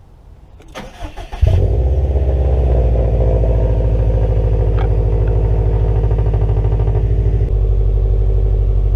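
Subaru WRX STI's turbocharged 2.5-litre flat-four being started: the starter cranks for under a second, then the engine catches and runs steadily. About seven and a half seconds in its sound drops a little lower.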